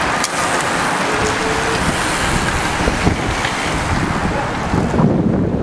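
A pack of racing bicycles rushing past close by, a steady hiss of many tyres on tarmac. Near the end wind buffets the microphone in low gusts.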